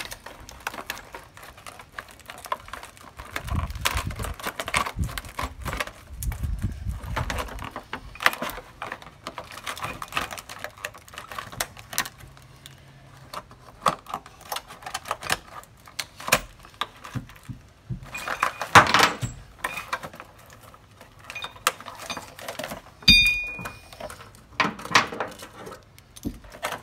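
Plastic and cardboard packaging being torn and crinkled open by hand, with a steady run of crackles, clicks and rattles of the metal parts inside. Wind buffets the microphone with a low rumble a few seconds in, and there is a short squeak near the end.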